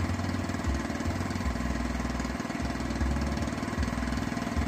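Small engine running steadily, driving the water pump that drains the fish pond, with irregular low rumbles underneath.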